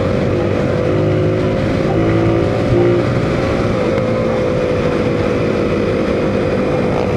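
Motorcycle engine running steadily while riding, over a constant rush of wind and road noise; its note dips slightly about four seconds in.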